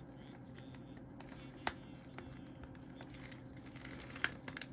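A few sharp clicks and taps from fingers picking at the plastic shrink wrap on a CD case, over a steady low hum: one click about two seconds in and a quick run of clicks near the end.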